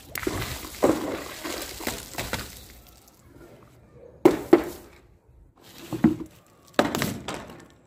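Liquid-filled balloons bursting and splashing as they hit a hard surface. A long wet splash comes first, then two sharp pops in quick succession about four seconds in, another around six seconds, and a last splattering burst near the end.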